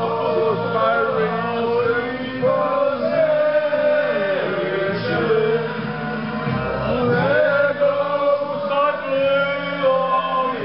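A man singing, holding long, wavering notes.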